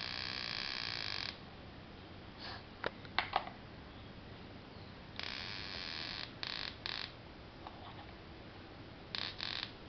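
Electronic buzz from a battery-powered high-voltage step-up (voltage multiplier) circuit, cutting in and out as its wire connections are made and broken. A steady buzz stops about a second in, a few sharp clicks come around three seconds, then the buzz returns in short bursts around five to seven seconds and twice more near the end.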